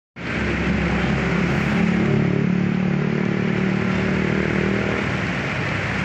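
Small waterfall pouring over a stone wall into a pool: a steady rush of splashing water, with a low hum underneath that fades out about five seconds in.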